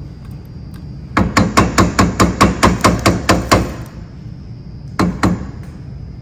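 A spatula knocking against the side of a metal cooking pot: about a dozen quick knocks, roughly five a second, then two more about a second later.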